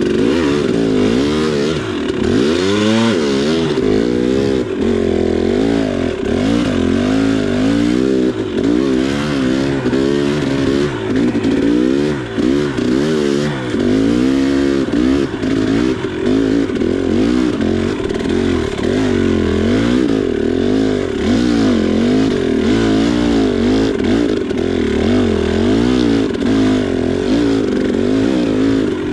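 2019 KTM 300 XC single-cylinder two-stroke dirt bike engine under constant throttle work at low speed, revving up and falling back over and over, its pitch rising and dropping about once a second.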